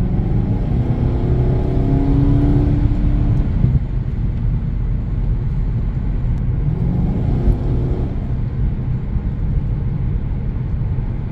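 Infiniti M45's 4.5-litre VK45DE V8 heard from inside the cabin while driving, over a steady low road rumble. The engine note rises as the car accelerates, falls away a little under four seconds in, then climbs again around seven seconds.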